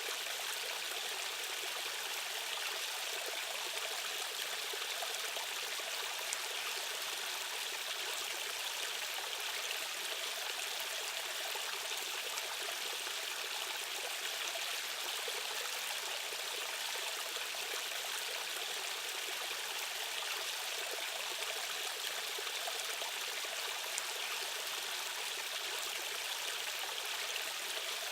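Fast-flowing stream water rushing steadily: an even, unbroken hiss of current with little low rumble.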